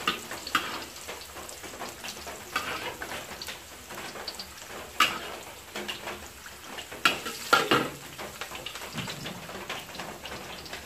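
Sliced ginger sizzling in hot oil in a wok, with a metal spatula scraping and knocking against the wok several times as excess oil is scooped out into a bowl.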